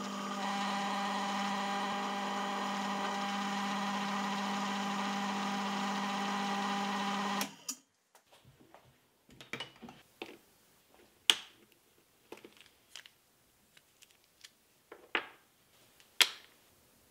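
A machine's electric motor runs with a steady hum as a number 6 drill bit bores the tapping hole for a 1/4 inch BSF thread. The motor cuts off abruptly about seven and a half seconds in, and scattered light clicks and knocks of metal tools being handled follow.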